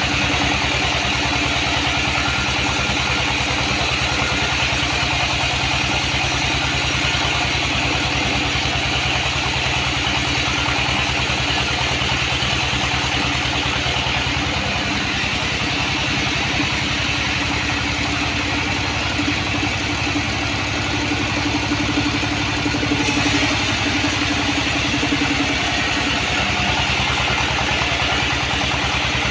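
Sawmill band saw machine running steadily, with a constant mechanical hum.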